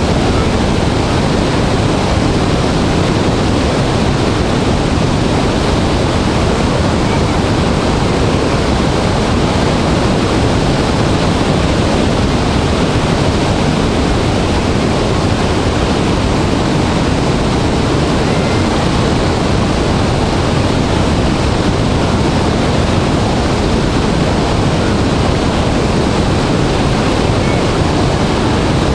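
Large waterfall in heavy flow: a loud, steady rush of falling water with no let-up.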